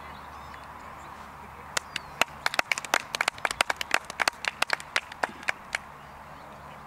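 A few people applauding: a short burst of hand claps, irregular and overlapping, starting about two seconds in and lasting about four seconds.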